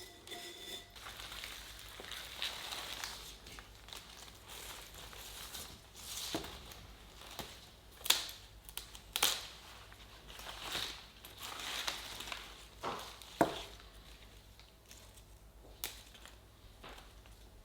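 Packaging being handled and opened by hand: irregular crinkling and rustling, with a few sharp clicks or knocks, the loudest about 8, 9 and 13 seconds in.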